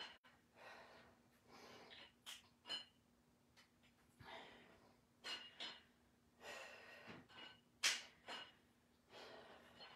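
A woman breathing hard from exertion during dumbbell chest presses, faint: breaths repeat every two to three seconds, a longer breath followed by two short sharp puffs.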